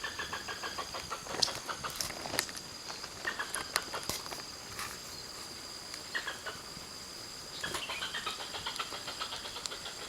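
An unidentified animal on the hillside above the rail cutting, giving runs of rapid pulsed calls several times, over a steady high-pitched buzz.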